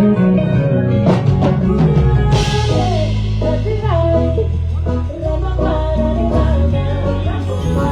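Live band playing a song with singing over bass guitar and drum kit, with a cymbal crash about two and a half seconds in.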